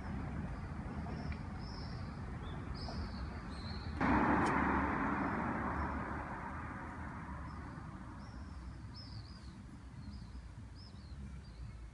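Street ambience with small birds chirping in short repeated calls. About four seconds in, a loud rush of road-traffic noise begins suddenly and then fades away over several seconds.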